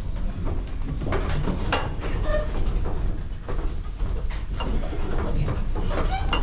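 Wind-driven wooden machinery of an oil mill running: a steady low rumble with irregular clattering knocks from the gearing and works.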